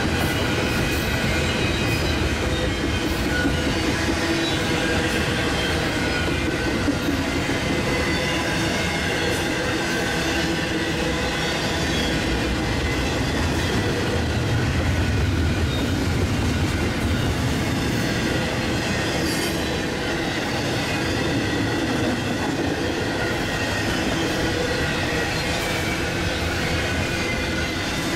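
Freight train rolling past close by: a steady rumble of cars and wheels on the rails, with a thin high squeal from the wheels.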